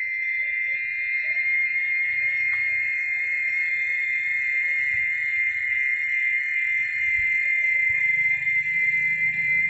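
Cicadas singing in one steady, loud, high-pitched drone that never breaks.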